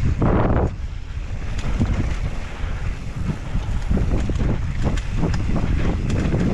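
Wind rushing over a mountain biker's helmet or body camera while riding, with a constant rattle and clatter of the bike over rough trail. A short, louder rush of noise comes just after the start.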